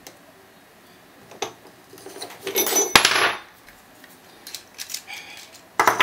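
Metal clicks and clinks from a disc-detainer padlock and its small parts being handled, with a scraping rattle about two to three seconds in that ends in a sharp click, then a few more scattered clicks near the end.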